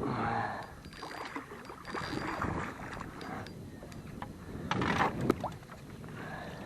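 Water and wind noise around a small fishing boat while a hooked fish is played, with a few faint clicks and a brief louder noise about five seconds in.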